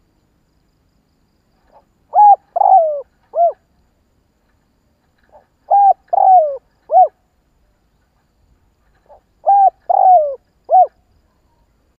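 Caged decoy spotted dove cooing: three identical phrases a few seconds apart, each a faint lead-in note followed by a loud coo, a longer coo falling in pitch, and a short closing coo.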